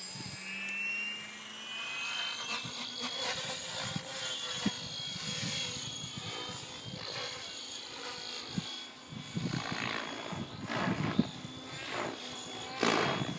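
Synergy E7SE electric RC helicopter spooling up and taking off: the high whine of its brushless motor and drive rises in pitch during the first couple of seconds, then holds steady with the whir of the rotor blades as it climbs away. Near the end, louder gusts of noise come and go.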